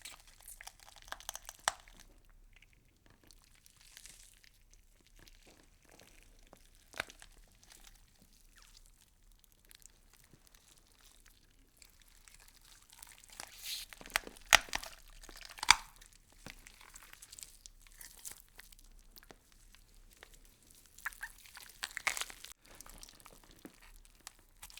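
Faint, scattered crunching and crackling of plant leaves being chewed by insects, irregular clicks that come thicker and louder about two-thirds of the way through.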